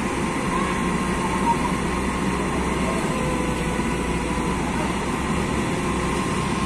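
Diesel engine of a truck-mounted Unic crane running steadily to power the crane as it holds and lifts a sunken box truck, with a faint steady tone over the engine noise.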